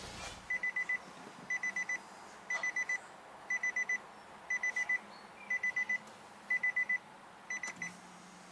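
Electronic beeping: high, same-pitched beeps in quick groups of four, repeated about once a second, eight times.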